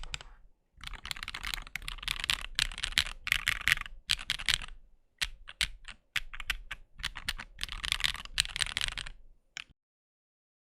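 Typing sound test on a Keychron Q4 60% mechanical keyboard fitted with Zaku switches: dense runs of keystrokes with short pauses and a few single strokes, stopping about a second before the end.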